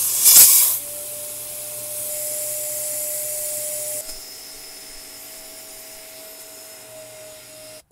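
Walnut-shell media blaster fed by compressed air: a loud sudden rush of air and media as the valve opens, then a steady hiss with a shop vac whining underneath. The hiss drops about four seconds in while the vac keeps running. The shop vac is hooked up backwards, so the spent walnut shell is not being pulled away.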